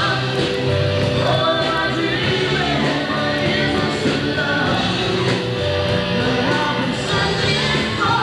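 Rock band playing live with a singer: a sung melody that glides up and down over steady bass notes.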